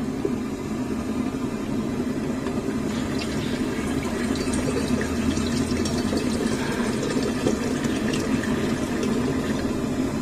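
Water running from the push tap of a plastic water jar into a steel vessel, splashing steadily as it fills. A steady low engine hum runs underneath.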